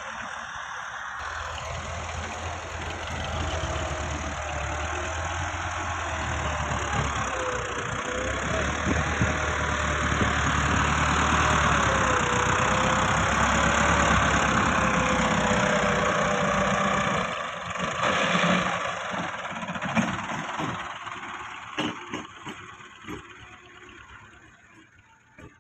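Farm tractor's diesel engine working under load as its front blade pushes soil, the engine note wavering up and down. It grows louder as the tractor comes close, then fades away over the last few seconds.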